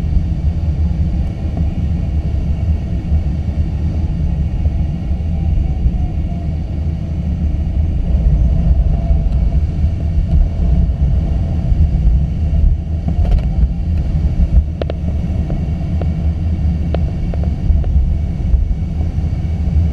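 Steady low rumble inside a two-seat glider's cockpit during an aerotow takeoff and climb: airflow over the canopy and the airframe rattling. A few light clicks come in the second half.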